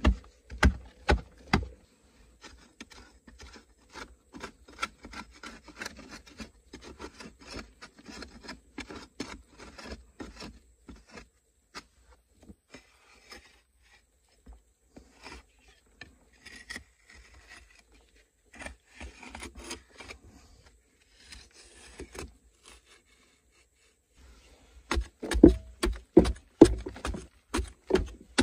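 A metal blade scraping and chipping at a hard clay earth wall in many short strokes, lighter through most of the stretch, then heavier, louder strikes with dull thuds near the end.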